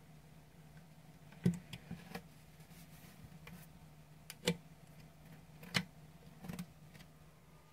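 Push buttons on a Spartus digital alarm clock's front panel clicking as they are pressed to set the time, about six irregular clicks, three of them sharper, over a faint steady low hum.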